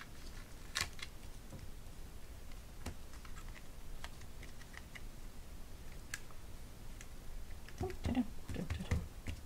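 Hands handling cardstock: light taps and paper rubbing as a layered card front is set onto a card base and pressed down onto double-sided tape. A few sharp ticks, the clearest about a second in, and softer rubbing near the end.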